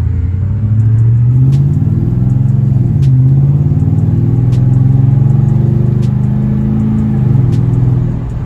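Toyota Tundra V8 with a true-dual Flowmaster Super 10 exhaust under acceleration, heard from inside the cab as a deep, loud drone. Its pitch climbs, drops back about three seconds in, climbs again and drops near the end; the owner calls the sound pretty aggressive.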